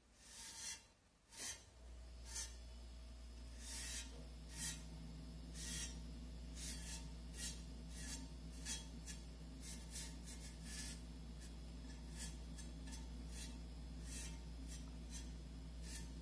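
Short rubbing strokes, about one or two a second, as Judean bitumen stain is worked onto the surface of an old vase. A steady low hum comes in about two seconds in.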